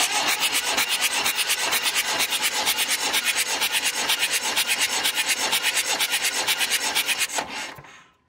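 Mahindra CJ500D's four-cylinder B275 diesel engine being cranked over by its starter motor for a compression test: a fast, even chugging of many pulses a second for about seven and a half seconds, dying away near the end.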